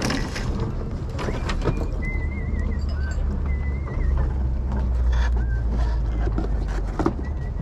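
Outdoor handling noise: a steady low rumble of wind on the microphone, with light knocks and clicks as boxes and items are picked up off a table, and a short warbling high tone heard twice in the middle.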